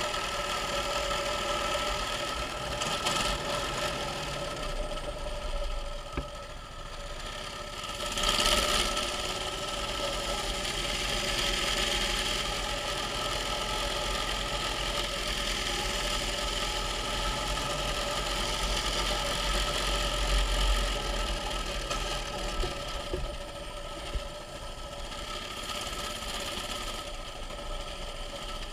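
Mini bike's small engine running steadily as it is ridden, its note holding fairly level, with a brief louder surge about eight seconds in and a slightly quieter stretch near the end.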